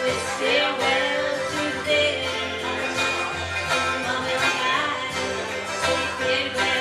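Live acoustic folk song: a banjo picking a steady accompaniment, with a voice singing over it.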